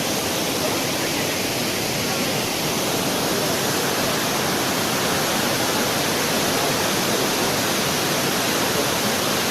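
Steady, loud rush of water from Abbey Falls, a large waterfall in Coorg.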